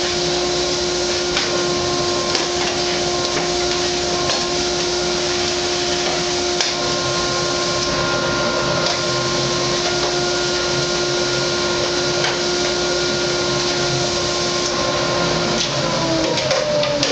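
A Rockler Dust Right 3/4-horsepower wall-mounted dust collector runs with a steady whine while its hose and brush attachment suck debris off a table saw, with occasional clicks from material going up the hose. Near the end the motor's pitch starts to fall as it winds down.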